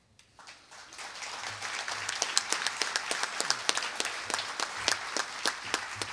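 Audience applauding, building up within the first second and then going on steadily.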